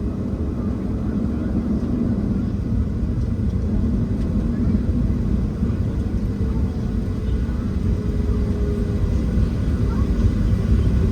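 Cabin noise inside a Boeing 737-700 on the ground: a steady low rumble from the CFM56 engines at idle and the airframe, with a faint steady hum, growing slightly louder.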